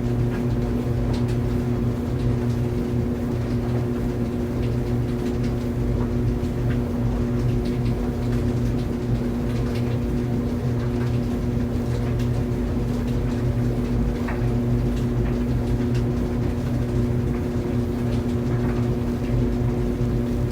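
Clothes dryer running steadily: a constant low hum over a rumble, with a few faint, scattered ticks.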